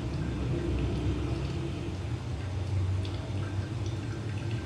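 Hot water poured in a thin, steady stream from a gooseneck kettle onto coffee grounds in a V60 paper-filter dripper, with small drips, during the final pour of the brew, over a low steady rumble.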